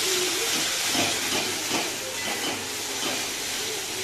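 Spice paste frying in oil in a wok for a doi fish curry: a steady sizzling hiss.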